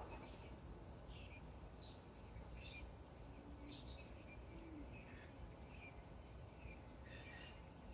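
Small songbirds chirping faintly and intermittently, short scattered calls, with one sharp high tick about five seconds in, over a steady low background rumble.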